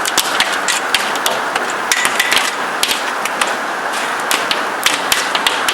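Large hailstones pelting down in a heavy storm: a dense, steady hiss of falling hail with many irregular, sharp cracks and knocks as individual stones strike hard surfaces.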